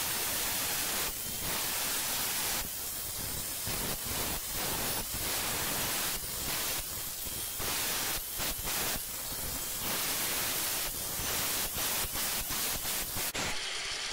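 Angle grinder with a thin cutting disc slicing through 1.2 mm thin-wall square tubing along a curved line: a harsh, steady grinding hiss. It dips briefly many times, more often in the second half, as the disc eases off and bites again.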